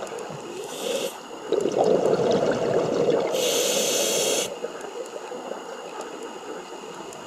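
Scuba diver breathing through a regulator underwater: a short hiss about a second in, then about three seconds of louder bubbling and hissing that stops suddenly.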